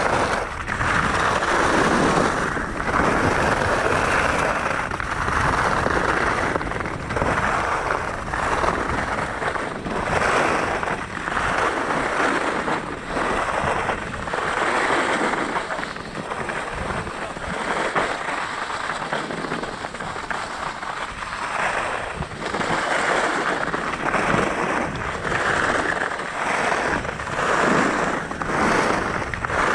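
Skis scraping and hissing over firm groomed snow on a ski run, the scrape swelling and fading every second or so as the skier turns.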